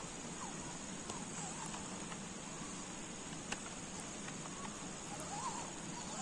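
Steady high-pitched drone of forest insects, with faint short rising-and-falling chirping calls near the start and again near the end, and a few light clicks.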